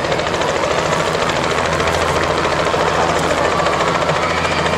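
Light two-bladed helicopter flying low toward the listener, its main rotor beating in a fast, even chop over the engine's low hum and getting slightly louder as it approaches.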